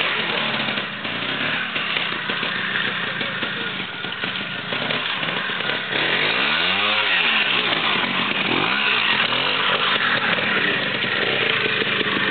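Trial motorcycle engine running at low revs as the bike picks its way through a muddy woodland section, the throttle blipped so the revs rise and fall, most clearly about six seconds in and again near nine seconds.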